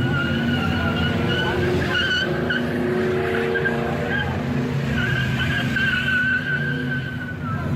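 A car drifting, its tires squealing in a long wavering screech over the engine's high revs; the squeal eases for a moment about three seconds in while the engine note rises, then returns strongly.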